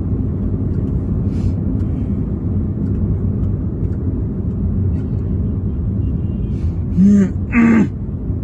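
Steady low rumble of a car's engine and road noise, heard from inside the cabin while driving. Near the end come two short, loud voice sounds from someone in the car.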